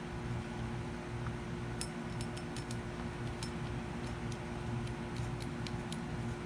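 A scatter of light, sharp clicks and taps as small compressor parts are handled and fitted during reassembly, over a steady low hum.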